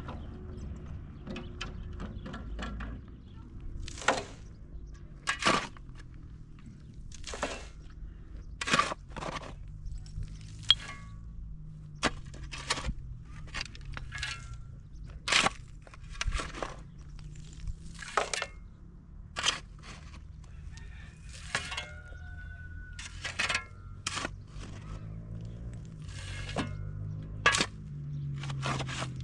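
Irregular sharp knocks or strikes, about one every one to two seconds and sometimes two in quick succession, over a low steady hum.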